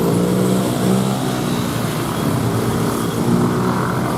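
A large bus's diesel engine running close by, its pitch rising and falling a little.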